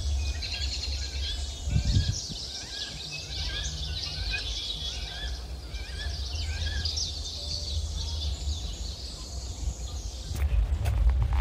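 Many small birds chirping and twittering at once in a dense chorus, over a low rumble. Near the end, clicks and rustling join in.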